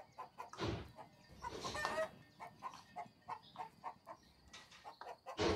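Chickens clucking in a steady run of short notes, about three or four a second, broken by a few louder, noisy bursts.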